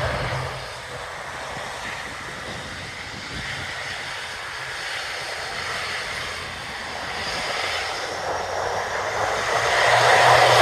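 Wind rushing over the microphone, mixed with the distant rumble of an aircraft's engines. The sound dips a little early on and swells louder near the end.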